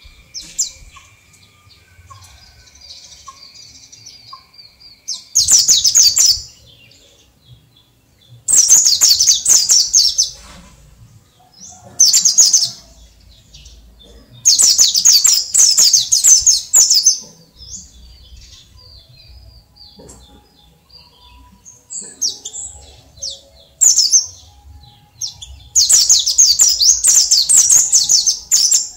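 Caged white-eye (pleci dakun Bali) singing loudly in rapid, high twittering phrases of one to three seconds, about seven times with short pauses between: the full 'ngalas' wild-style song.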